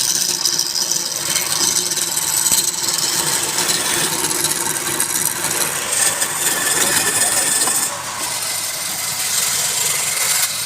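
Wood lathe running with a turning tool scraping the spinning wood: a steady hiss over a low motor hum, dipping briefly a little before the end.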